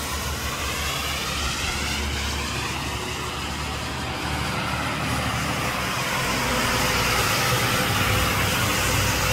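Road traffic on rain-wet streets: a steady hiss of tyres on wet asphalt that grows louder about six seconds in as a vehicle passes.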